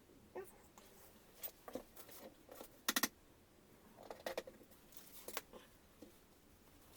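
Scattered light clicks and brief clattering of small objects being handled, with a sharp double click about three seconds in.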